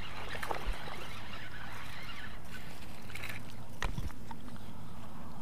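A small bass being reeled in, splashing at the surface. There is one sharp splash or knock about four seconds in, and some shorter clicks before it.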